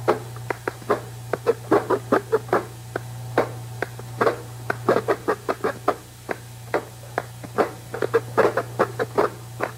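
An uneven run of short, sharp clicks and taps, one to three a second, over a steady low hum.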